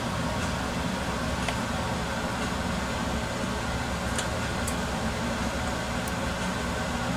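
Steady background hum and hiss, like a fan or power supply running, with a few faint ticks.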